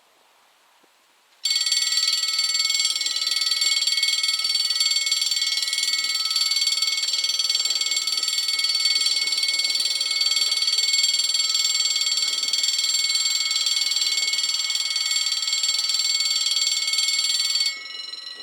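Warning bells of a French SAL 2 automatic level crossing starting suddenly about a second and a half in: a loud, steady electronic ringing made of many high tones, warning that a train is approaching. The ringing stops near the end, and a quieter ring lingers for about a second.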